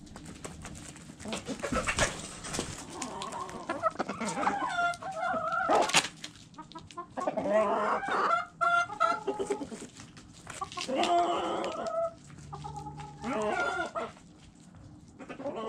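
Backyard chickens clucking and calling in about four bouts, with a few sharp taps of beaks pecking at food among the calls.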